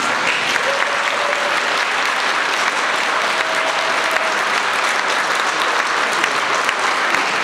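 A large seated audience applauding, steady dense clapping that carries on without a break.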